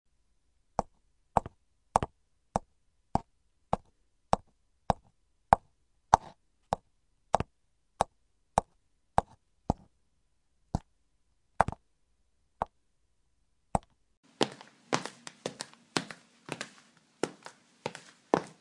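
High-heel footsteps clicking on a hard floor, one sharp click per step at a steady walking pace of a little under two steps a second. Around the middle the steps slow and space out, and about 14 seconds in they come quicker and closer together, with a background hiss and more echo behind them.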